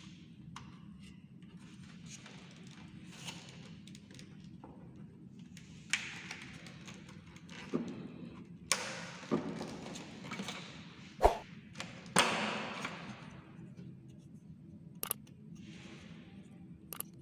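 Scattered knocks, clacks and short scrapes of hard parts being handled over a steady low hum, busiest in the middle, with the loudest sharp knock about eleven seconds in.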